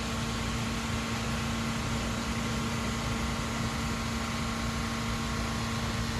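Pressure washer running steadily: an even motor hum under the constant hiss of a water jet flushing out a gutter.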